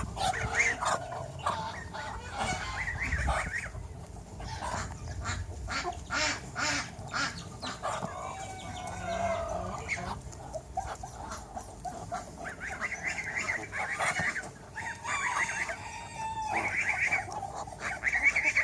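A flock of backyard chickens clucking and squawking, many birds calling over one another, with a run of quick, sharp calls a few seconds in.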